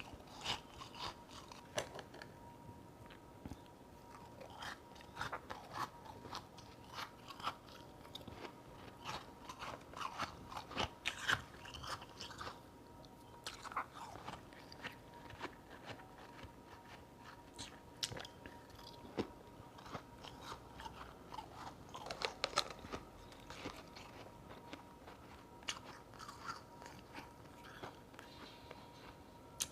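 Close-up crunching and chewing of powdery ice chunks (freezer frost), with many irregular crisp bites and crunches.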